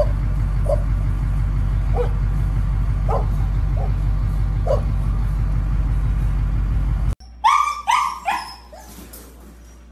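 A dog barking faintly every second or so over a loud steady low rumble. After a sudden cut, a husky puppy gives four quick yelps, each falling in pitch, about seven and a half seconds in.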